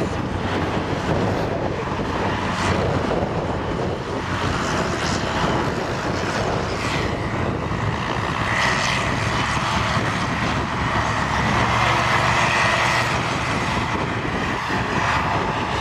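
Large diesel tractors running hard under load as they pull ploughs: a steady, continuous engine drone. A thin high whine joins about seven seconds in.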